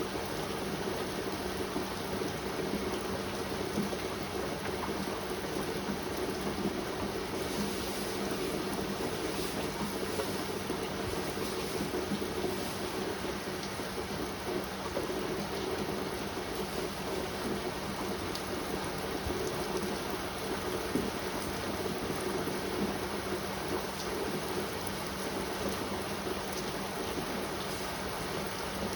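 Heavy rain pouring steadily, an even unbroken hiss of rainfall.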